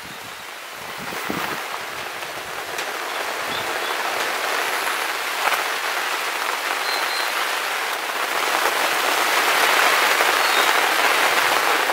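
Campfire of hardwood firewood catching and burning up: a steady hiss with a few faint crackles, growing louder over the first few seconds and louder again near the end.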